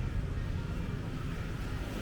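Outdoor street ambience of a busy tourist street, dominated by a steady low rumble.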